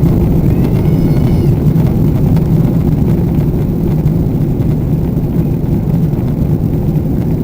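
Boeing 777 jet engines at takeoff power, a steady loud low rumble.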